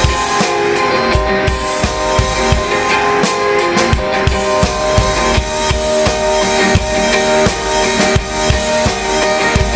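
Rock music, an instrumental passage: a drum kit keeps a steady beat with regular bass-drum hits under sustained guitar chords.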